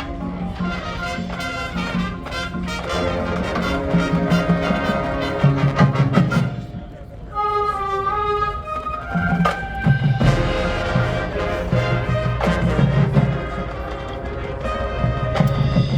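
Marching band's brass section playing sustained chords with percussion. About seven seconds in the full band drops out, leaving a single held note with vibrato for a second or so before the ensemble comes back in.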